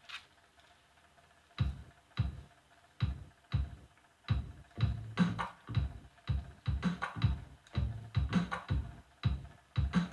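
Instrumental intro of a song: an electronic drum beat comes in about a second and a half in. It gets busier after a few seconds, and bass notes join under it.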